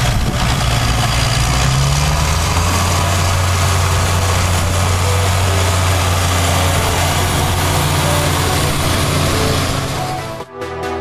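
New Holland TM190 tractor's six-cylinder diesel engine running steadily under load as it pulls a seed drill through tilled soil, passing close by. Electronic music cuts in suddenly near the end.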